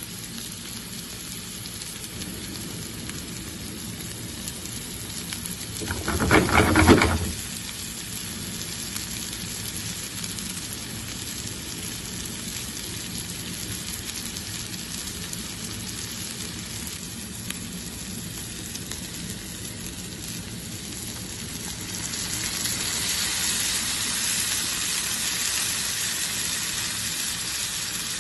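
Diced onion and tomato frying in oil in a pan, with a steady sizzling hiss. About six seconds in there is a brief louder sound lasting about a second. From about two-thirds of the way through the sizzle grows louder, as canned tuna goes into the pan.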